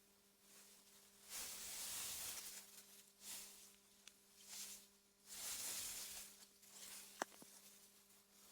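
Soft gusts of wind rustling through meadow grass, swelling and fading several times, over a faint steady low hum. A single sharp click sounds about seven seconds in.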